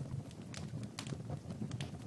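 Wood fire crackling in a fireplace: irregular sharp pops, several in the space of two seconds, over a low steady rumble.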